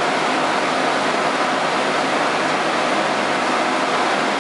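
Brick-making machinery running with a loud, steady, even mechanical din.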